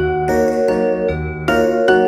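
Background music: a tinkling melody of struck, ringing notes, about two a second, over a low bass line.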